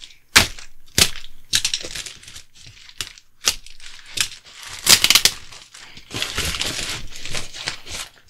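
Grey plastic mailer bag crinkling and tearing as it is pulled off a cardboard box: a run of sharp crackles, then a longer rustle near the end.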